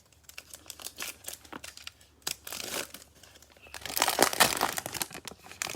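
Cellophane wrapper of a trading card pack crinkling and being torn open, a run of crackles that grows loudest about four seconds in.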